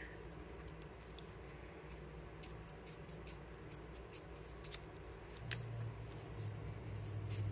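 Faint, scattered small clicks and taps of hands handling small parts and tools on a wooden workbench, with a low hum coming in about two-thirds of the way through.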